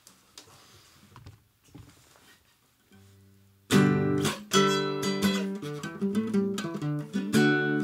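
A few faint clicks, then a classical guitar starts about three and a half seconds in with fingerpicked notes and chords.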